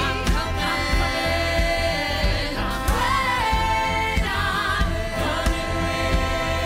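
Musical-theatre song: a chorus of voices singing long held notes over a band with a steady, pulsing bass beat.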